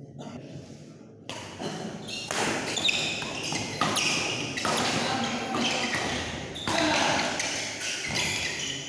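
Badminton rally: repeated sharp racket strikes on the shuttlecock and players' footfalls on the court, over indistinct voices of onlookers that grow louder about a second in.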